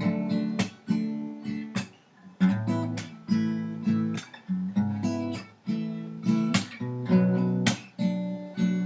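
Acoustic guitar strumming chords in a steady rhythm, each strum ringing out: the instrumental intro of a love song before the vocals come in.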